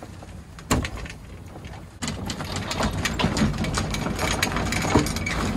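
Sailboat coming about: a single knock about a second in, then from about two seconds in a louder, rapid rattling as the sails flap and the sheets and rigging shake while the bow passes through the wind.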